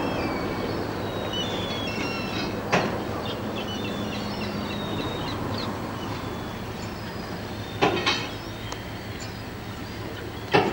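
Harbour ambience: a steady low background rumble with many short, high chirps and squeaks, and a few sharp knocks, one about three seconds in, two close together around eight seconds and one near the end.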